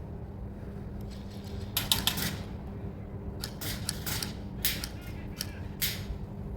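Airsoft guns firing: short runs of sharp, snapping clicks, the strongest cluster about two seconds in and more bursts between four and six seconds in.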